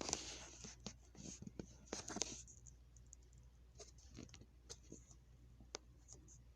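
Faint clicks and rustling: a busy patch of handling noise in the first two and a half seconds, then scattered single clicks.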